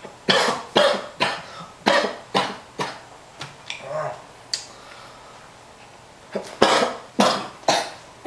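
A man coughing in two fits: a run of about six harsh coughs in the first three seconds, a pause with a few small throat sounds, then four more coughs near the end.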